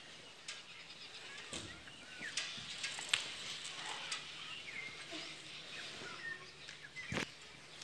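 Birds chirping in short calls, with a few sharp clicks, the loudest about three seconds in and another near the end.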